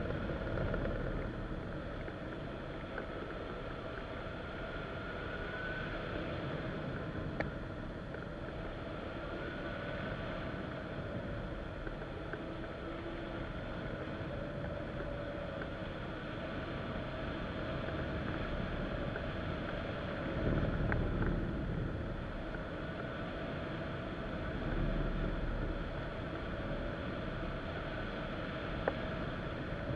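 Steady rush of air over a wing-mounted camera on a hang glider in flight, with faint drifting whistling tones; the rush swells briefly about two-thirds of the way through.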